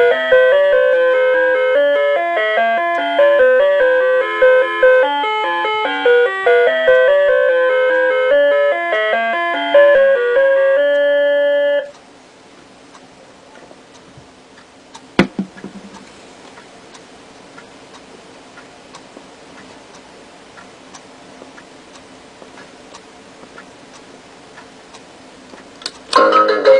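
Electronic alarm melody from a novelty pig alarm clock: a simple beeping tune of stepping notes that cuts off abruptly about twelve seconds in. A quiet hiss follows with one sharp click, and another beeping tune starts right at the end.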